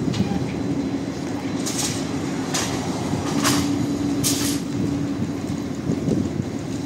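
Trolleybus running, a steady electric drone with four short hisses a little under a second apart near the middle.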